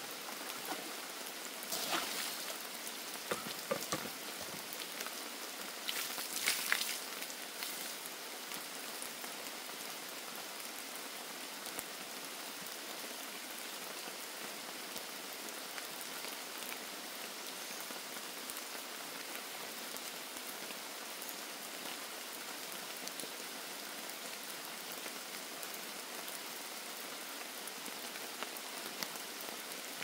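Steady rain shower falling, with a few short, louder noises in the first several seconds.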